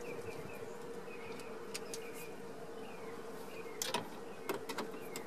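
A Phillips screwdriver and screw clicking lightly against the metal bracket of a dash screen, twice, about four seconds in, over a steady faint hum.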